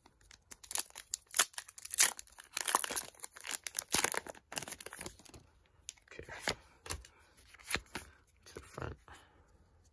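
Foil wrapper of a Pokémon TCG booster pack being torn open and crinkled. The crackling is densest in the first half and thins to a few sharper rustles after.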